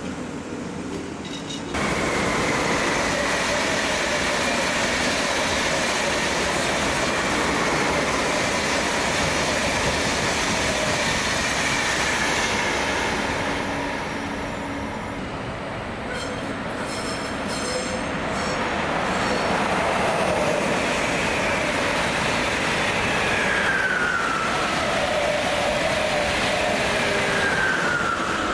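Train passing through a station at speed without stopping, starting abruptly about two seconds in and staying loud for nearly half a minute. High whining tones from the wheels on the rails slowly fall in pitch over the pass.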